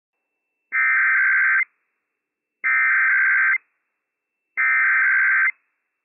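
Emergency Alert System SAME header on NOAA Weather Radio: three identical bursts of warbling digital data tones, each just under a second long and about a second apart. The repeated header opens an EAS message, here a Required Weekly Test.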